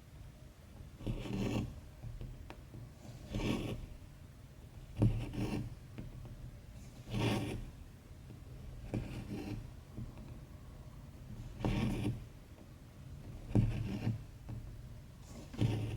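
Cross-stitch thread being pulled through 14-count stitching fabric, stitch after stitch: a short rasping pull about every two seconds.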